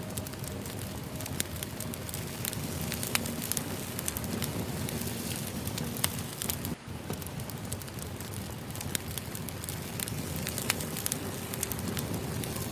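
Firewood burning, with frequent irregular sharp pops and crackles over a steady hiss.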